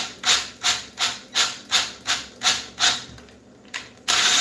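Ryobi cordless drill turning a thread tap into a damaged bolt hole in a cast valve cover: a rhythmic rasping scrape of the tap cutting metal, about three times a second, that fades out near the end and gives way to a steady louder rasp.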